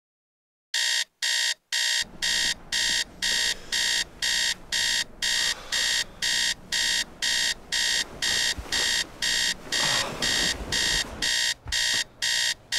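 Electronic alarm clock beeping in quick, even high-pitched pulses, about two a second, starting about a second in.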